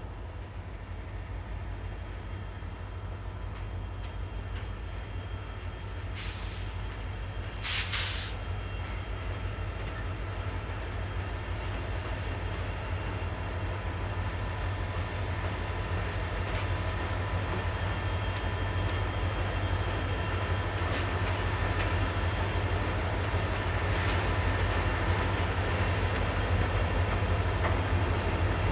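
Canadian Pacific freight train's diesel locomotives approaching, a steady low engine rumble growing gradually louder. Two short hissing bursts come about six and eight seconds in.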